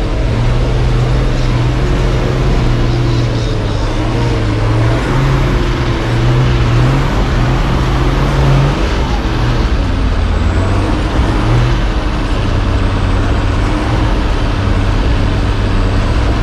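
Nissan Patrol GQ ute's engine working hard in second gear low range, both diff lockers engaged, as it climbs a steep dirt hill. The engine note is steady at first, then drops lower about nine seconds in and holds there.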